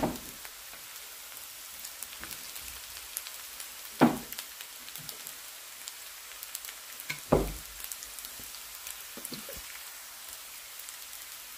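Noodles sizzling quietly in a hot wok as they are stir-fried with chopsticks, with a faint steady crackle. Two sharp knocks, about four seconds in and again past seven seconds, and a few lighter taps after that.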